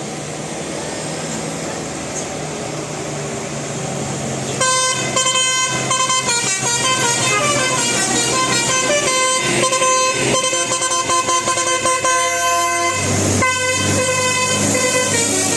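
Bus engine and traffic noise, then about four and a half seconds in a bus's multi-tone 'telolet' horn starts playing a fast melody of changing notes, the Basuri horn tune, and keeps playing.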